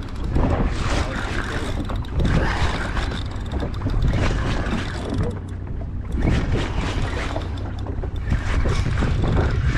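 Wind buffeting the microphone in a steady low rumble, over the noise of the boat on the water.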